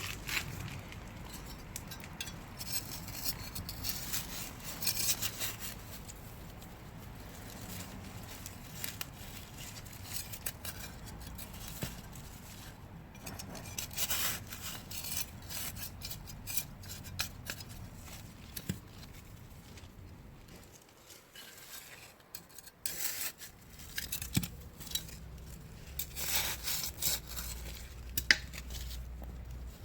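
Irregular scraping and rasping of hand work in garden soil, with many short clicks and scratches, as the seed fruits are dug in; the sound dips briefly about two-thirds of the way through.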